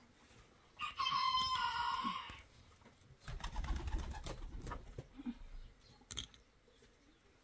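Birds calling, with a pitched call of about a second near the start and a few short low coos. A low rumble comes in midway.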